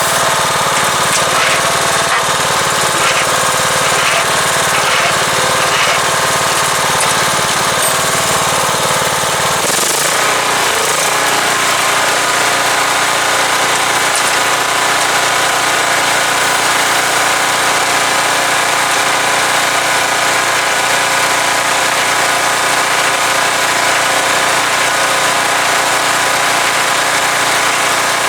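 Small single-cylinder lawnmower engine, with a cracked crankcase that is leaking oil, running steadily and loudly. About ten seconds in its speed shifts and it settles into a steady run.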